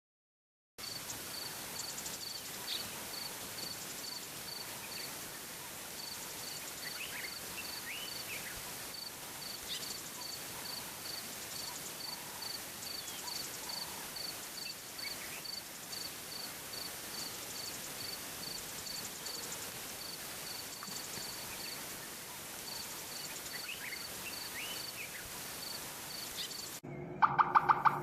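Outdoor ambience: an even hiss with a high peep repeating about three times a second and scattered short bird chirps. A few sharp clicks come near the end.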